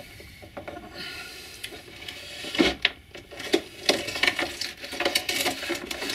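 Loose model railway ballast grit rattling and trickling through a small plastic ballast spreader as it is pushed along the track, with a knock about two and a half seconds in and a busy run of small clicks and rattles after it.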